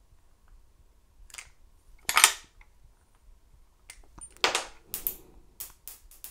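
Small metal parts of a motorcycle ignition lock clicking and clattering as the lock is taken apart by hand: the wafer cylinder comes out of its housing and the loose screws are dumped. There is a sharp clack about two seconds in, another about four and a half seconds in, then a quick run of small clicks near the end.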